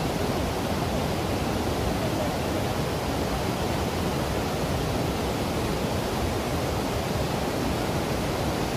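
Waterfall rushing steadily: a dense, even noise of falling water, heaviest in the low end.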